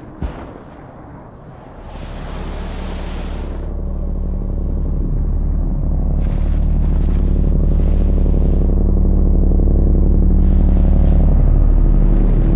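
Deep, steady-pitched sci-fi hum that swells in about two seconds in and keeps building louder, with a rushing hiss laid over it at times. There is a short sharp knock just after the start.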